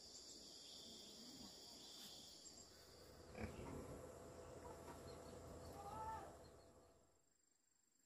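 Faint outdoor ambience: a steady high insect buzz through the first few seconds, a click about three and a half seconds in, then a low rumble with a short chirp. It all fades to near silence near the end.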